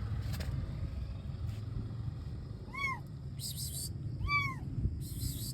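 Abandoned kitten meowing twice, two short high-pitched cries that rise and fall, about a second and a half apart. Under them runs a steady low rumble, and brief hissing rustles come between the cries.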